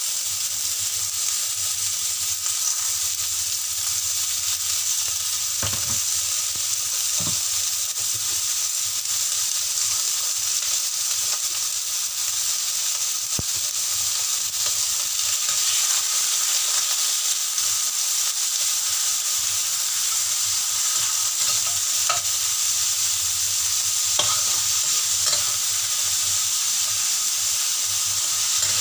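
Sliced beef and cucumber sizzling steadily in hot oil in a stainless steel wok, with a few short clinks and scrapes of a metal spatula as the stir-fry is turned.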